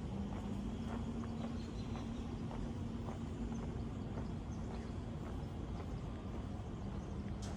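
Street ambience with scattered faint clicking steps, like footsteps on stone. Under it runs a steady low hum that fades out about halfway through and comes back near the end.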